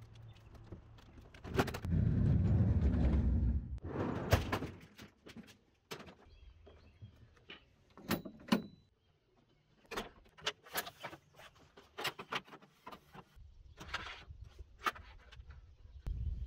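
Metal clanks, clicks and knocks from the folding mobile cart of a SawStop Jobsite Saw PRO as it is worked by hand, including its foot-pedal release. The loudest part is a low rumble lasting about a second and a half, about two seconds in.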